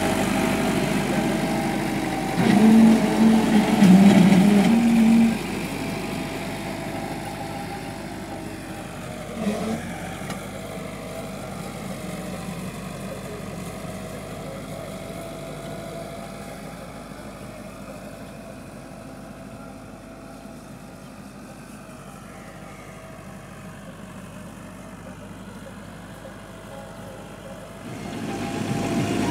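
Massey Ferguson 375 tractor's diesel engine running as it pulls a disc harrow, loud and close at first with a few louder spells about three to five seconds in. It then fades steadily as the tractor moves away and is loud and close again near the end.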